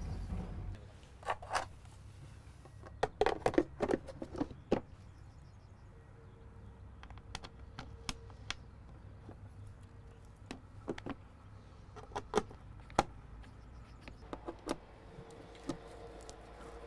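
Scattered plastic clicks and taps as a truck's rear lamp lens is pressed back onto its housing and its screws are driven in with a screwdriver.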